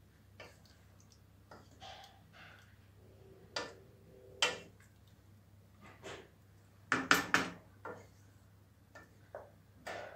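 Wooden spoon stirring a stew of meatballs and potatoes in a stainless steel pot, knocking and scraping against the pot in scattered taps, with a louder cluster of knocks about seven seconds in.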